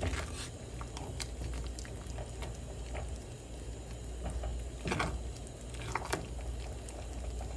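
A silicone spatula stirs thick, bubbling grits with butter and heavy cream in a metal saucepan, giving soft wet squishing, with a few sharper clicks against the pot. A steady low hum lies underneath.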